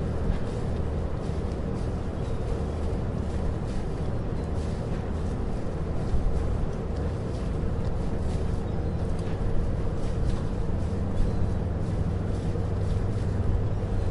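A running engine's steady low rumble with a constant hum, unchanging throughout, with faint scattered ticks.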